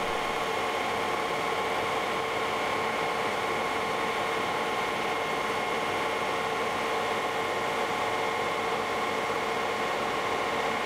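A large metal lathe running at about 800 rpm, spinning a bicycle disc brake rotor between the pads of a caliper. It makes a steady mechanical whine over an even hiss, with no change in speed.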